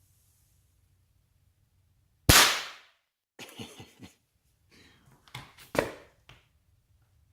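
A pistol firing a primer-only round (primed case, no powder, with a candy projectile): one sharp pop about two seconds in that fades within half a second, followed by a few fainter clicks and knocks.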